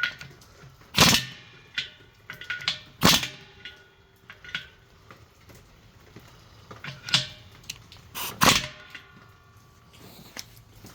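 Metal hand tools clanking and knocking as they are picked up, set down and worked on the compressor: about six sharp, loud clanks with brief metallic ringing, and lighter clicks and taps between them.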